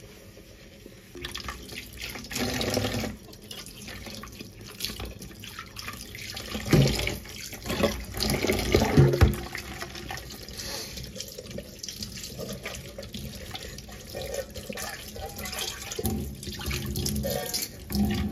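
Kitchen tap running and splashing into a stainless steel sink, with a few knocks of a pot being handled, likely while rice is rinsed in the rice cooker pot.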